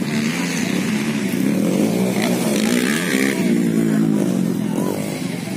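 Motorcycle engine running and revving, its pitch rising and falling in several swells.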